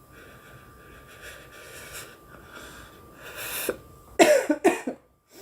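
A woman takes a long breathy inhale, then coughs hard about three times in quick succession about four seconds in: coughing on a hit of cannabis smoke.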